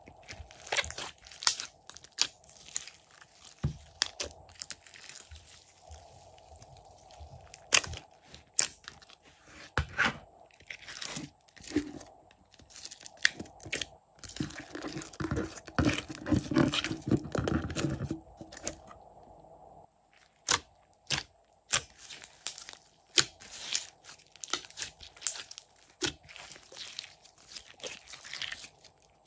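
Glossy slime being stretched, pressed and kneaded by hand, giving a string of sharp sticky clicks and pops. The clicks thicken into a dense crackling about halfway through.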